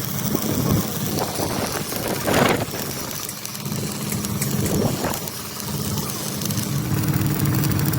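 An engine running steadily at idle, with two brief noisy bursts about two and a half and five seconds in.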